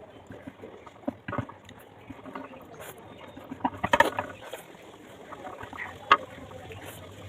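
A person eating close to the microphone: irregular chewing and mouth sounds with a few sharp clicks, the loudest cluster about four seconds in.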